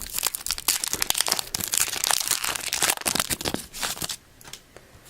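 Foil wrapper of a Topps Chrome baseball card pack being opened, crinkling and crackling, stopping about four seconds in.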